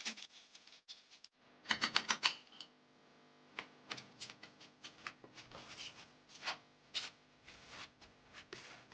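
Irregular light clicks and taps, with a quick run of about six taps about two seconds in and scattered single ticks after.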